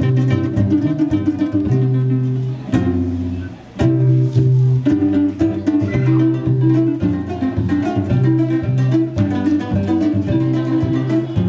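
Ensemble of Ugandan arched bow harps (adungu) plucked together in a repeating pattern over a deep bass line. The playing thins out briefly about three and a half seconds in, then picks up again.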